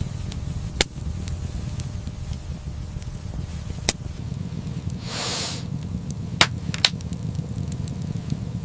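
Steady low rumble with a few sharp pops or cracks, and a short hissing whoosh about five seconds in.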